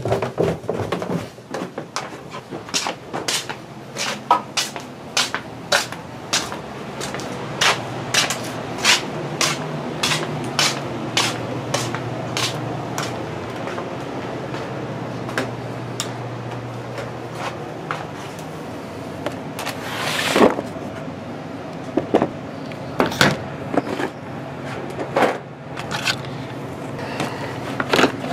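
Repeated knocks and clatter from handling plastic storage drawers and the paint bottles in them. A low steady hum runs under it for about twelve seconds in the middle.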